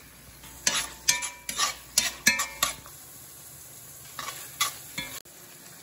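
Metal spoon scraping and clinking against a frying pan while stirring Sichuan chili bean paste into hot oil with ginger, onions and garlic, over faint sizzling. About six sharp scrapes and taps come in quick succession in the first three seconds, with three more a little past four seconds.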